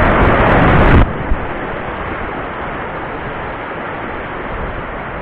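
Rushing whitewater of a rocky mountain stream's rapids, a steady noisy rush. For the first second strong wind buffets the microphone over it. About a second in the sound suddenly drops in level and turns duller.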